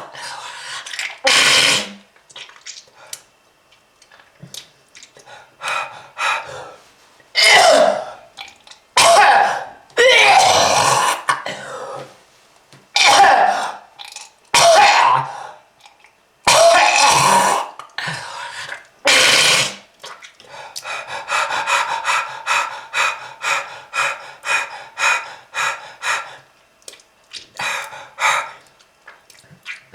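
A person's heavy, hacking smoker's cough: a series of harsh coughs and throat-clearing hacks, followed about two-thirds of the way in by a run of short, quick, laboured breaths, roughly two a second.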